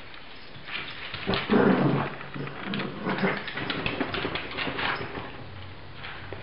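Cavalier King Charles spaniels play-fighting: a run of dog growls, loudest about one and a half seconds in, mixed with claws clicking on tile, dying down about a second before the end.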